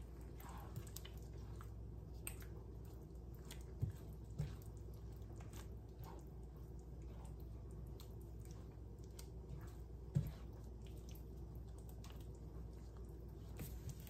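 Silicone spatula stirring a thick cream sauce with chicken and mushrooms in a nonstick skillet: faint wet squishing and light scraping with scattered small clicks and a few soft knocks, over a low steady hum.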